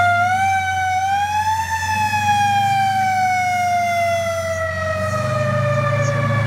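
Fire truck siren climbing to its highest pitch about a second and a half in, then sliding slowly down in pitch, over the low rumble of the truck's engine.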